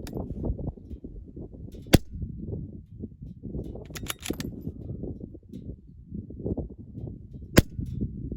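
Two shots from a Ruger Precision Rimfire .22LR rifle, about five and a half seconds apart, with a short run of faint clicks between them. Gusty wind rumbles on the microphone throughout.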